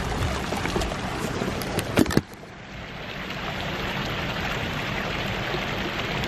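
Fountain jets splashing into their basin, a steady rushing of water. A couple of sharp clicks come about two seconds in, after which the rush drops briefly and then evens out.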